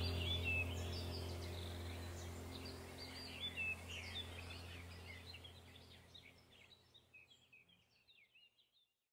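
Background ambient music: a low steady drone under chirping birdsong, both fading out together to silence about seven seconds in.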